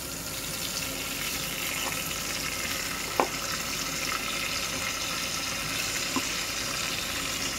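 Soaked rice being tipped into hot ghee and whole spices in a pressure cooker, sizzling steadily. A light click about three seconds in.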